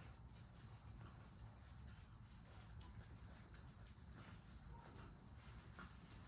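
Near silence: a steady low hum and faint steady high whine, with faint scattered rustles and scratches of puppies shifting in wood-shaving bedding.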